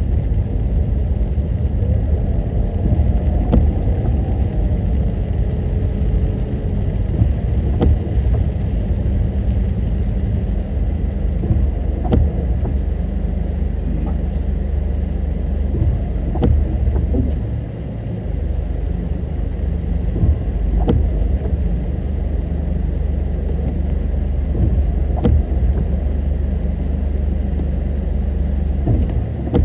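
Car driving on a highway, heard from inside: a steady low rumble of road and engine noise, with a faint click about every four seconds.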